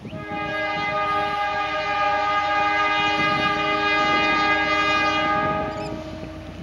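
Diesel locomotive's air horn sounding one long, steady blast of several notes at once, cutting off near the end.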